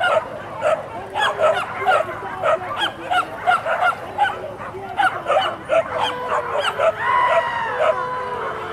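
A pack of hunting dogs yelping in an overlapping chorus of short, high cries, several a second, on a wild boar hunt. About seven seconds in, one longer drawn-out cry stands out.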